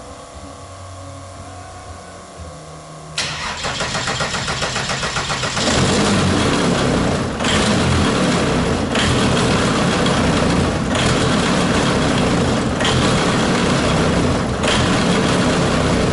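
Aircraft diesel engine started up: about three seconds in it cranks and fires, and from about five and a half seconds it runs loud but unevenly, surging every couple of seconds. It is not running right, a fault traced to the throttle not yet being wired up.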